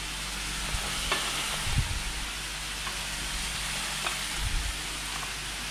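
Boerewors sausage frying in olive oil in a pan, a steady sizzling hiss. A few soft knocks and taps come as bread rolls are handled on plates.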